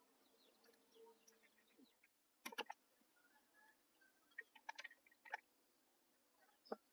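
Near silence, broken by a few faint, sharp clicks: three about two and a half seconds in, several more a couple of seconds later, and one near the end.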